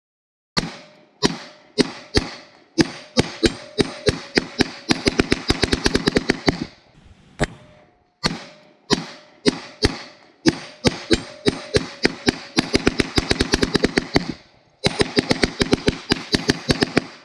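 Rapid gunfire from a firearm shooting at a steel RC tank. Single shots about half a second apart quicken into fast strings of shots, with a short pause about seven seconds in and a brief break near the end before a last quick string.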